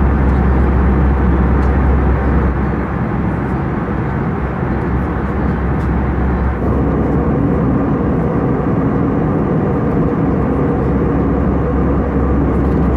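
Steady cabin noise of an Airbus A320-214 in cruise: a low drone from its CFM56 engines under the rush of air past the fuselage. The low drone weakens for a few seconds about three seconds in, then returns.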